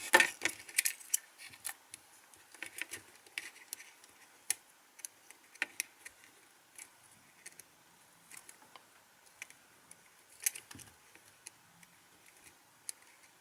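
Light irregular clicks and taps of small tools on plastic phone parts, as a smartphone's touch-sensor ribbon connector is fitted and pressed home; the clicks are densest at the start, then sparse.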